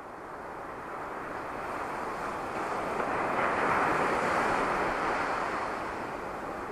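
Sea waves on a beach: one long wash of surf that builds to a peak about halfway through and then eases off.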